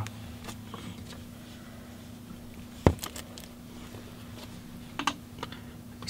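Light, scattered taps and clicks of small items being handled on a tabletop, with one sharp click about three seconds in, over a steady low electrical hum.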